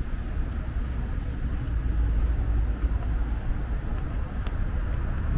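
Steady city street traffic noise: cars driving along a multi-lane avenue, a constant low rumble.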